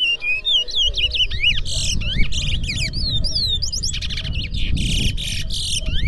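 Towa-towa (chestnut-bellied seed finch) song: quick sliding whistled notes mixed with blocks of rapid, buzzy rattling phrases, one phrase after another with hardly a break. A low rumble runs underneath from about a second in.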